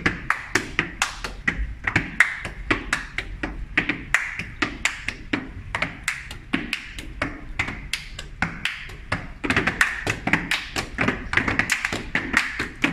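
Gumboot dancing: hands slapping the sides of rubber gumboots and boots stamping on a hard floor, giving a quick, even rhythm of sharp slaps, about three to four a second.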